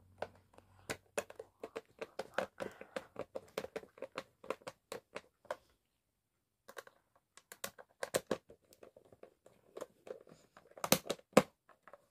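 Screws being tightened into a wooden speaker box with a hand screwdriver: a run of quick small clicks, a pause about halfway, then more clicking with two louder knocks near the end.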